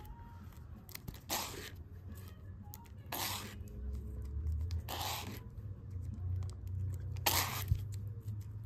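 Plastic comic-book bags rustling and scraping as bagged comics are flipped through one at a time in a cardboard box, four short swishes about two seconds apart, over a steady low hum.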